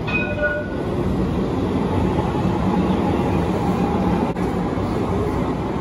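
Electric street tram passing close by on its rails: a steady rolling rumble that builds over the first second and stays loud. A brief high tone sounds at the very start.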